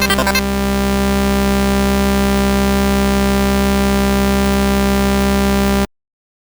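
Oscilloscope-music audio, the stereo signal whose left and right channels draw the picture on the oscilloscope. A pulsing electronic pattern gives way within the first half-second to a steady, harsh buzzing drone with many overtones, which cuts off abruptly near the end.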